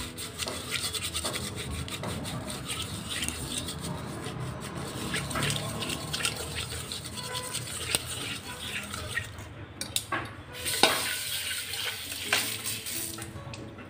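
An empty medicine blister pack rubbed hard against the bottom of a stainless steel pot, a rapid scratchy scrubbing that scours off stuck-on milk and tea residue. A few louder knocks come near the end.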